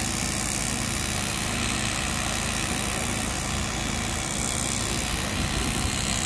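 An engine running steadily at idle: an even, constant low hum with a hiss over it.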